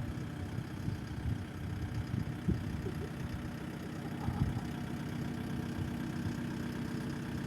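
An engine idling steadily, with a few short low knocks in the first half.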